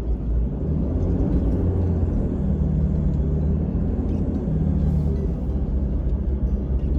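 Vehicle engine running steadily with a low, even drone.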